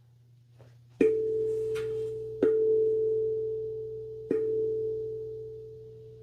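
Guda steel tongue drum struck three times with sticks, each note ringing on and fading slowly, under a faint steady hum.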